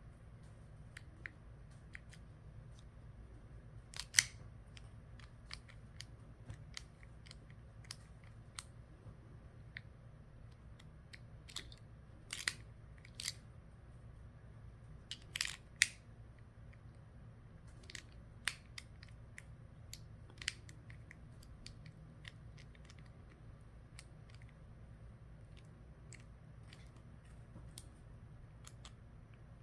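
Small sharp metallic clicks and ticks at irregular intervals as a Ford ignition lock cylinder and its tumblers are worked by hand, with a few louder clicks around four, twelve and sixteen seconds in, over a low steady hum. The rebuilt cylinder is jamming and won't turn.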